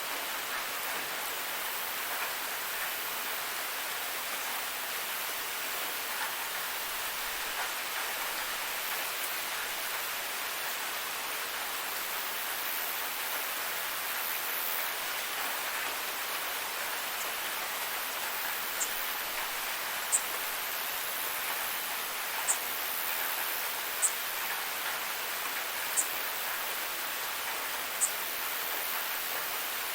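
Steady rushing and splashing of a forest waterfall, an even hiss of falling water. In the second half, short high chirps come every couple of seconds above the water.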